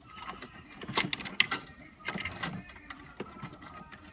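Scattered clicks and rattles of hands working through wiring and plastic connectors inside an ice machine, loudest about a second and a half in.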